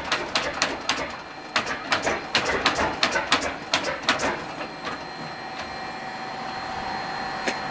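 Il-14's ASh-82T radial engine being turned over slowly by its starter without catching: irregular knocks and clacks a few times a second. They die away after about four seconds, and a steady high whine carries on.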